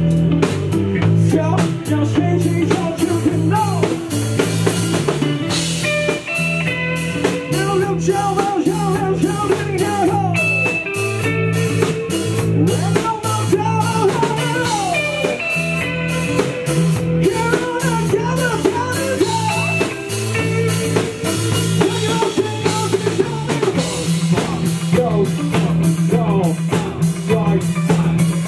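Live rock band playing: electric guitars, bass and a drum kit keep a steady beat, with a lead voice or guitar line wavering over it.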